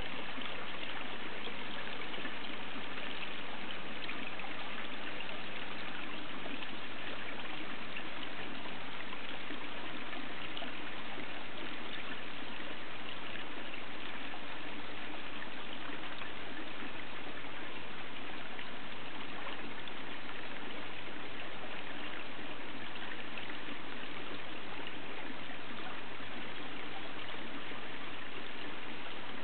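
Steady trickling and running water in a garden koi pond.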